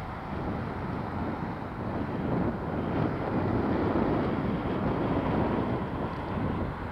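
Steady rushing hum of highway traffic heard from a distance, with wind on the microphone. It grows somewhat louder through the middle.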